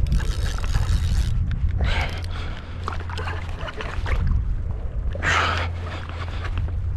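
Wind buffeting the microphone as a steady low rumble, with several short hissing bursts of noise, the strongest a little past five seconds in.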